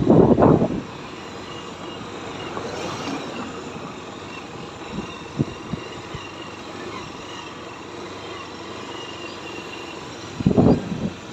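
Steady outdoor background noise, with short loud rumbling buffets at the very start and again near the end, and a few faint clicks around the middle.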